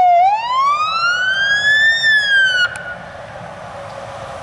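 A fire engine's siren winds up in one long rising wail, dips slightly, and cuts off suddenly a little past halfway. The steady rumble of the approaching truck's engine and tyres then carries on.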